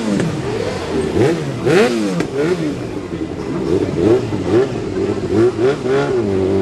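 Motorcycle engine revved hard in quick throttle blips while standing still, about a dozen rises and falls in pitch roughly twice a second, then held at a steadier note near the end.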